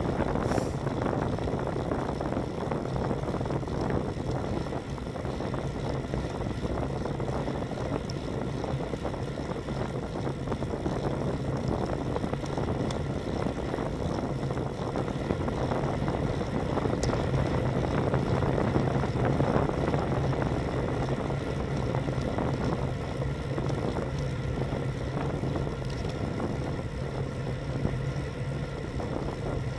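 Steady wind rush over the microphone of a handlebar-mounted bike camera, with road-bike tyres rolling on asphalt at about 29 km/h, and a low steady hum underneath.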